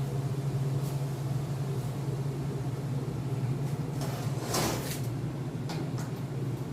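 A steady low machine hum, with a short burst of noise about four and a half seconds in and a few light clicks.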